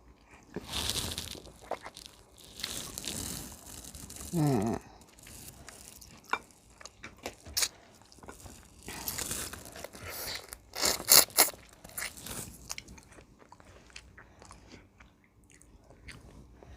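Close-miked eating: crunching bites and chewing of crispy fried food, with a cluster of loud crunches about two-thirds of the way through.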